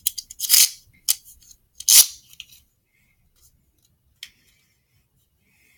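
Plastic Beyblade tops and launcher being handled: two short scraping sounds about half a second and two seconds in, with a few light clicks, one of them near four seconds.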